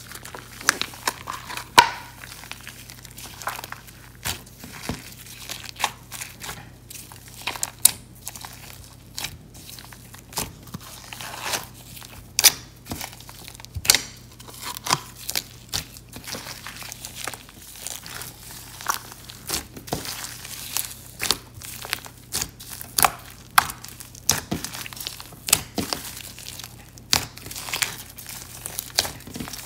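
Sticky clear slime and white clay slime being kneaded, squeezed and stretched together by hand, giving irregular wet clicks and pops, a few every second.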